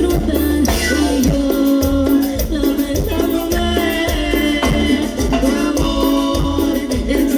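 Latin band music playing, with a steady beat and a pulsing bass line.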